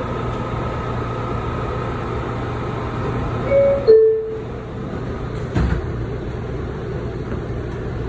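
Inside a New York City subway car: the steady rumble of the train running, with a steady high whine. Just before halfway come two short squealing tones; then the whine stops suddenly, and a single knock follows a little later.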